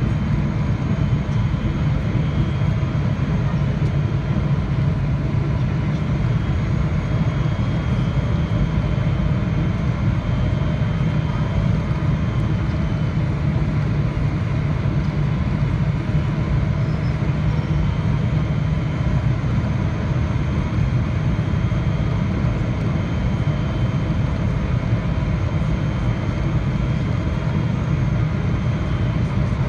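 Boeing 777-300ER cabin noise on the descent to landing, heard from a window seat over the wing: a steady low rumble of the GE90-115B engines and rushing air, with a faint steady high whine over it.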